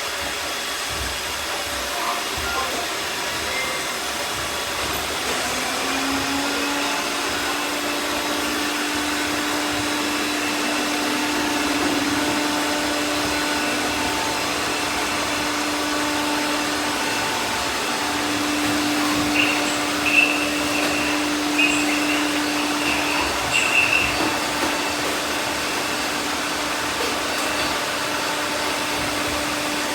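Many robot vacuums running at once: a steady whir of motors and brushes with several thin whines layered in, and a low hum that joins about six seconds in. A few short chirps and knocks come just past the middle.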